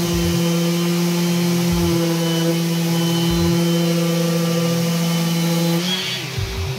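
Random orbital sander running steadily as it sands the end grain of a wooden cutting board. Near the end its tone changes and the lower hum drops out as it comes off the board.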